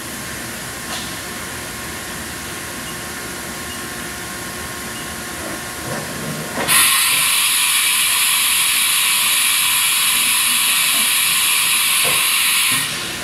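Haas VF-9 CNC vertical machining center running with a steady mechanical hum. About seven seconds in, a loud, even hiss starts, lasts about six seconds, then cuts off near the end.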